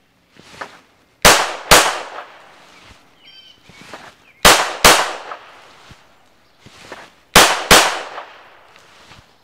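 Canik TTI Combat 9mm pistol fired in three controlled pairs: two quick shots under half a second apart, the pairs about three seconds apart.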